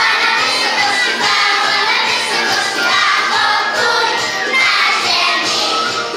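A group of young kindergarten children singing a song together as a choir.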